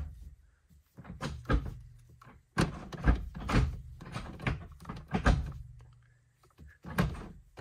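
A Porsche 911 GT3's manual gear lever, fitted with an aftermarket Numeric short shifter, being worked through the gates by hand: a run of sharp clunks and clicks, about ten in all, as it snaps in and out of gear.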